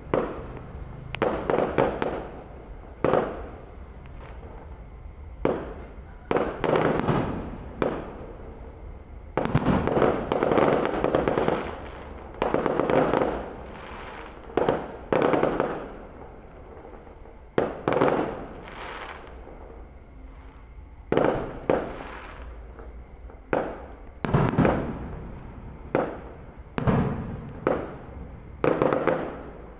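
Fireworks shells bursting overhead in an irregular series of bangs, some in quick clusters with crackling, one after another every second or two.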